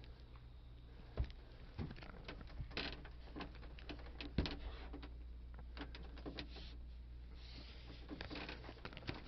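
Scattered clicks, knocks and short rustles of things being handled and moved while a room is searched, with two sharper knocks about a second in and near the middle, over a steady low hum.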